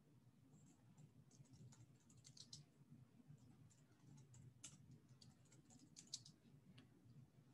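Faint typing on a computer keyboard: irregular key clicks in short runs, with a few sharper taps about halfway through and again near the end.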